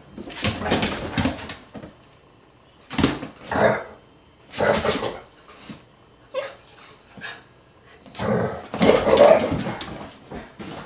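A Huskita puppy and a yellow Labrador at play, with barking in several short bursts and a longer stretch of barking near the end.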